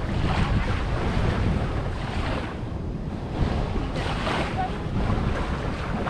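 Wind buffeting the microphone with a steady low rumble, over surf washing onto the beach in swells that come and go every couple of seconds.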